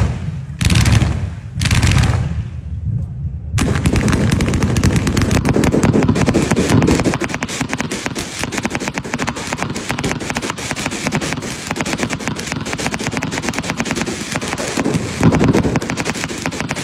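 Fireworks and firecrackers going off: three heavy booming bursts about a second apart, then from about three and a half seconds in a continuous, very rapid crackle of small bangs that swells again near the end.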